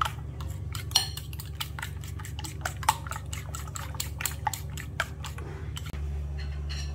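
Metal spoon beating raw eggs in a ceramic plate: quick, uneven clinks of the spoon against the dish, several a second, stopping near the end.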